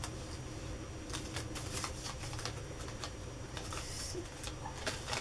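Paper cardstock card being handled and turned over in the hands: light rustling and scattered soft clicks over a steady low hum.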